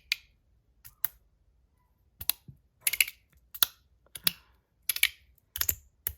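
Osseous Point EDC fidget slider being slid back and forth, giving sharp clicks, often in quick pairs, about every two-thirds of a second.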